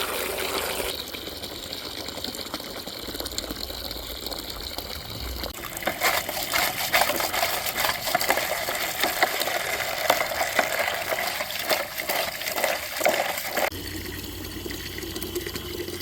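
Running water filling the hens' waterer, steady at first, turning busier and more splashy about six seconds in, then easing off near the end.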